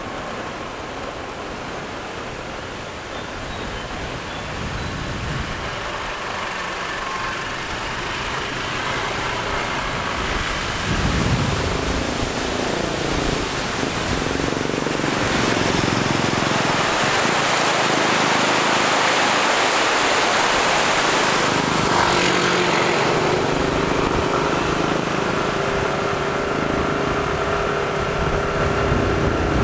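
Wind rushing over the microphone, with road noise, while riding down a paved road; it builds steadily and is loudest from about halfway in until near the three-quarter mark.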